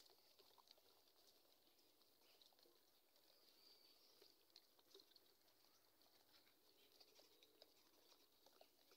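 Near silence: faint outdoor ambience with a few soft scattered ticks.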